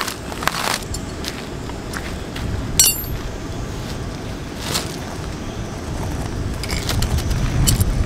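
Footsteps crunching on gravel, then metal tent pegs and a peg hammer being handled: a few sharp clinks, one ringing metallic clink about three seconds in, over a low rumble that grows near the end.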